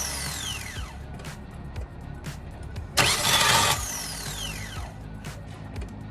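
Starter motor of a 2000 Nissan Altima cranking in a short harsh burst about three seconds in, followed by a whine that falls in pitch as it winds down, with no sign of the engine catching. This is one of repeated start attempts on a car that only starts after several tries; the owner suspects a worn starter Bendix drive or flywheel ring gear.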